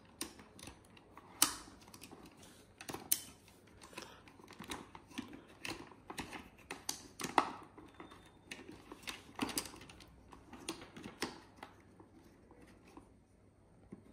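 Irregular plastic clicks, knocks and rattles as a GoPro camera is handled and pushed into a black plastic frame case, a few of the snaps much louder than the rest. The clicking thins out over the last couple of seconds.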